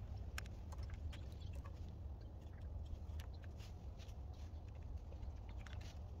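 Scattered light clicks and ticks at an irregular pace over a steady low rumble.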